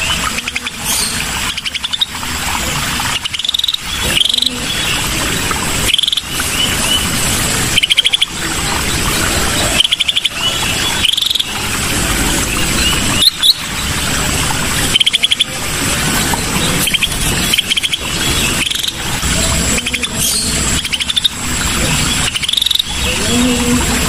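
Recorded song of a cucak sisik (scaly-breasted bulbul): short, rapid trilled calls repeated every second or two, over a steady high insect buzz and hiss.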